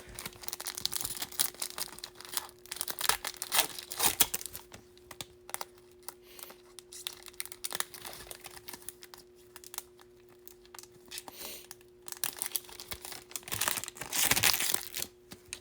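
Wrapper of a Bowman baseball card pack being torn open and crinkled by hand, in scattered bursts of rustling and crackling that are busiest about two to four seconds in and again near the end.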